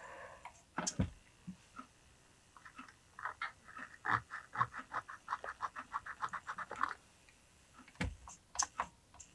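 Small RC servo whirring in a quick run of short stuttering bursts, about five or six a second for some four seconds. A few sharp clicks and knocks come before and after.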